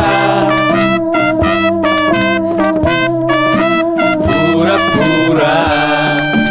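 Instrumental band music: a break in an upbeat song, with no singing. It has long held, bending notes throughout, and a cluster of steady high notes comes in a little past halfway.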